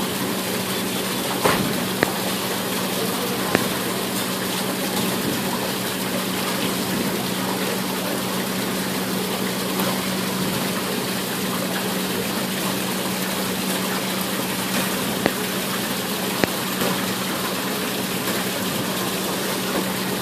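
Fountain water splashing and running steadily, with a steady low hum underneath and a few sharp clicks.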